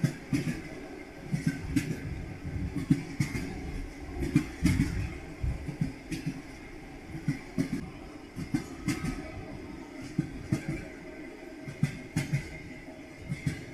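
Train wheels clattering over rail joints: repeated groups of knocks over a steady rolling rumble.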